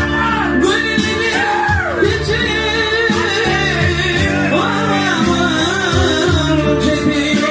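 A Turkmen song: a singer's ornamented vocal line, gliding up and down in pitch, over steady instrumental backing.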